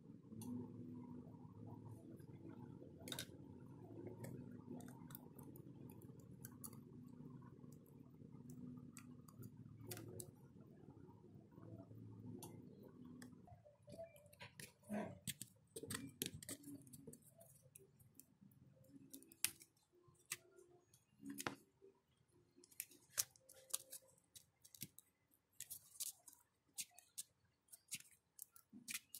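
Faint small clicks and crackles of tweezers and clear adhesive tape being handled against a phone's metal midframe, scattered and sharper in the second half. Under the first half runs a low steady hum that stops about halfway through.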